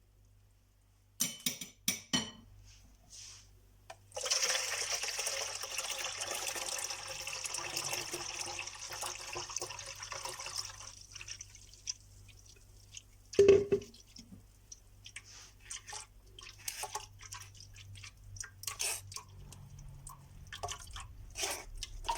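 Blended lemon liquid poured steadily for about seven seconds, then dripping with scattered small clicks. A single knock comes about halfway through.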